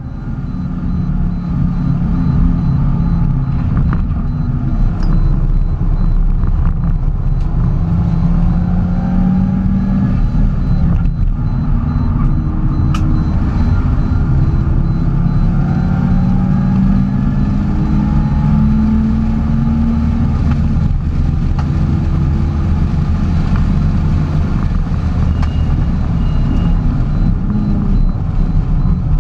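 A Porsche being driven: a steady low engine and road rumble, with the engine's pitch climbing slowly and dropping back several times as it gathers speed and changes gear.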